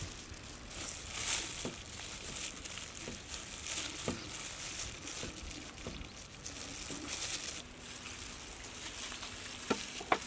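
Plastic-gloved hands handling a raw whole goat carcass: the disposable gloves crinkle and rustle as the meat is cut and rubbed with wet spice paste, with scattered faint ticks and two sharp clicks near the end.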